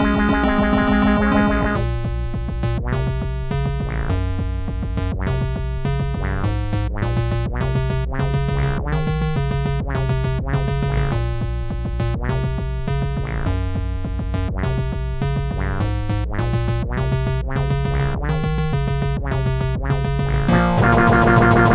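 Electronic rock cover played on a Meowsynth, a synthesizer voiced with cat meows, over drum machine and bass. It goes in a choppy stop-start rhythm of short chords with brief gaps, then the full arrangement comes back in louder near the end.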